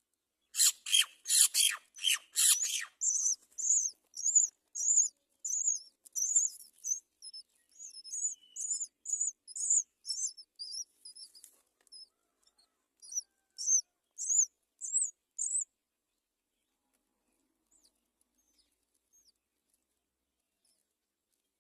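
Baby birds in a nest chirping: a quick run of harsh, high calls in the first few seconds, then a long series of short high chirps that stops about 15 seconds in.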